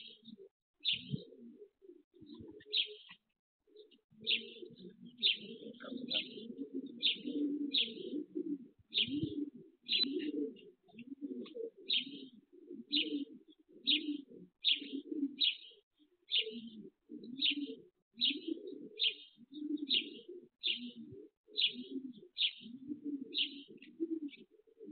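Pigeons cooing continuously in low, throaty pulses. A small bird chirps repeatedly over them, a short high chirp about every half second.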